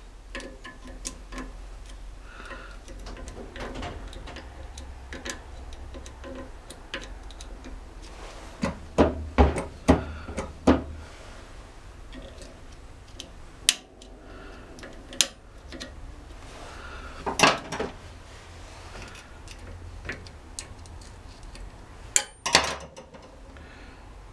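Light metallic clicks and clinks of a steel circlip being worked onto a gearbox input shaft with a pick, the circlip against the shaft and compressed spring. A cluster of sharper metal knocks comes about 9 to 11 seconds in, with single ones later.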